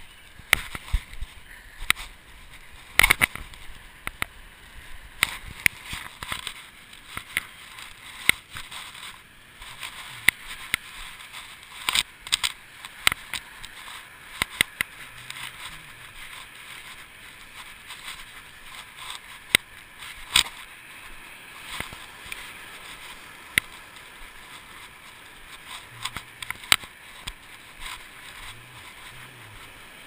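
Irregular clicks, knocks and rubbing from a GoPro in its waterproof housing swinging on a neck cord against the walker's body with each step. Beneath them is a steady hiss of wind and surf.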